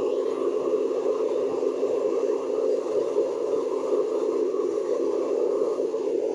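Small crucible furnace running at full heat, with its forced-air draught making a steady rushing noise.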